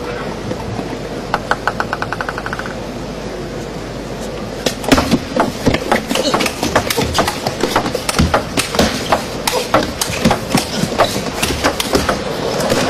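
Table tennis rally: the celluloid ball clicks sharply off rackets and table in quick exchanges, over a steady crowd murmur in the hall. About a second in there is a brief run of quick, even light ticks.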